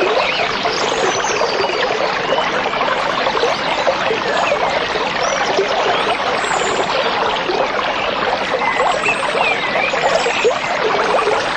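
Stream water trickling and babbling steadily, with a few short bird chirps scattered through it.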